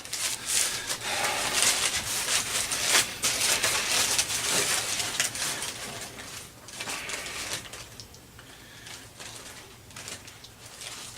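Paper wrapper crinkling and rustling as a sandwich wrap is slowly unwrapped by hand, busiest in the first six seconds, with a softer burst of crinkling about seven seconds in before it tails off.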